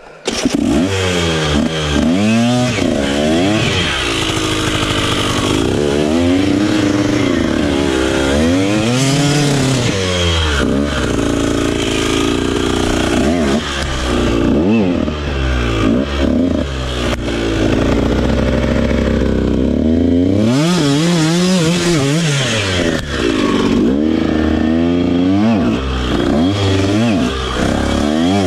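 Dirt bike engine revving up and down in repeated swells as the rider works the throttle, labouring up a steep, rocky trail.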